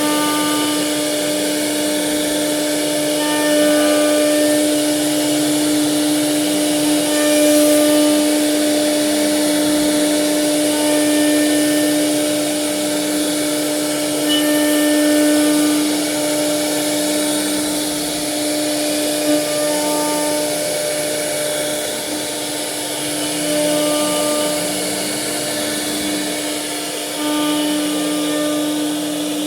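CNC router carving wood: the spindle runs with a steady whine over the hiss of the cut, while the axis motors add shorter tones that rise, fall and come and go as the head moves.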